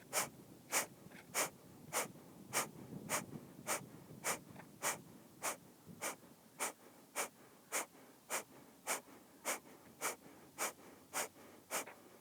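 Kapalbhati breathing: a steady run of short, forceful exhales through the nose, just under two a second, the belly button pulled in towards the spine with each one.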